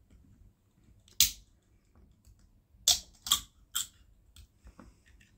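Aluminium soda can being handled and opened: one sharp crack about a second in, then three sharp cracks in quick succession around three seconds in.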